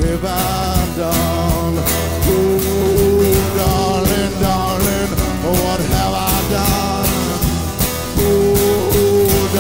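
A live band playing a country-rock song with no lyrics sung: strummed acoustic guitar, electric bass and drums, with a lead line of long, slightly wavering held notes twice over the top.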